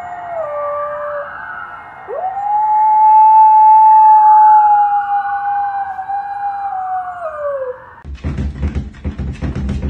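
A dog howling: a short howl that drops in pitch, then a long howl that swoops up, holds for several seconds and falls away at its end. Music with a beat comes in near the end.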